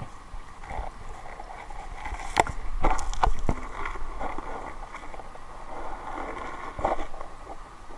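A mountain stream heard through a camera held under the water: a steady low rush with a few sharp clicks and knocks, a cluster about two and a half to three and a half seconds in and another near seven seconds.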